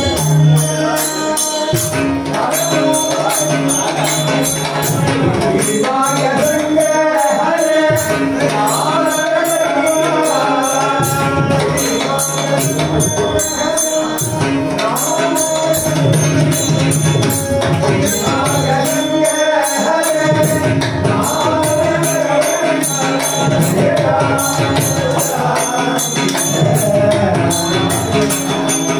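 Men singing a Hindu devotional bhajan together, with jingling metal percussion keeping a steady beat.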